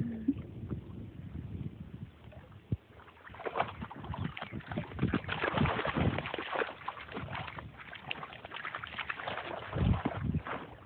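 Water splashing and sloshing as a dog wades out of the water at the shore, loudest through the middle, with a low thump near the end.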